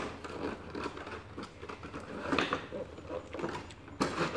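Cardboard box and the packaging inside it rustling, scraping and knocking as they are handled and the contents are pulled out, with a louder clunk about four seconds in.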